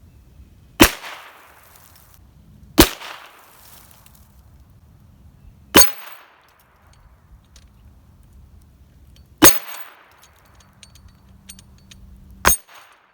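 Heritage Rough Rider .22 rimfire single-action revolver firing five shots, spaced unevenly about two to four seconds apart, each with a brief echo.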